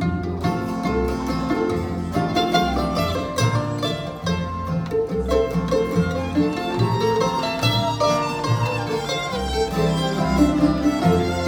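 Bluegrass string band playing an instrumental passage, mandolin among the plucked strings, over steady low bass notes.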